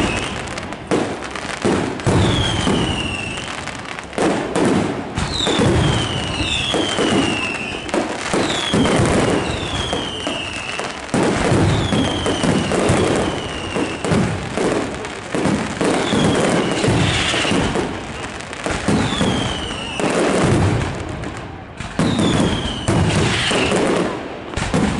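Fireworks display: a continuous run of shell bursts and bangs, overlaid by a series of whistling fireworks, each whistle falling in pitch, one every second or two.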